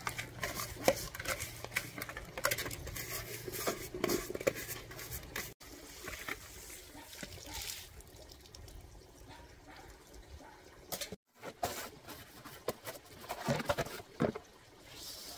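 Plastic flower pots and a hanging basket being handled and cleaned out: scraping and scooping of old soil, light knocks of plastic and the patter of loose dirt falling onto concrete, broken by two abrupt cuts.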